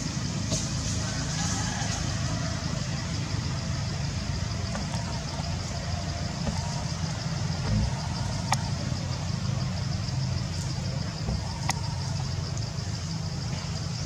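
Steady outdoor background rumble with a continuous high-pitched hiss over it, and two sharp clicks about three seconds apart.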